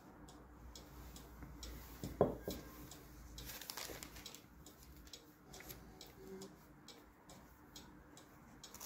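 Faint, quick, regular ticking that keeps an even beat throughout. A single knock comes about two seconds in, and a soft rustle follows a little later.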